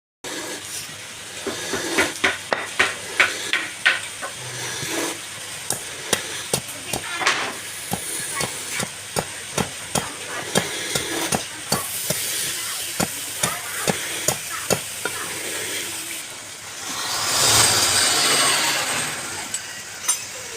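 Many sharp taps and knocks in an irregular run, with a louder rushing noise lasting about two seconds near the end.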